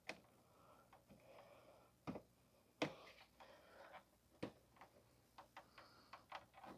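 Faint, irregular clicks and light knocks of plastic bumper-cover tabs and clips being pried and lifted, the clearest about three seconds in and again a little later, with a quick run of smaller clicks near the end.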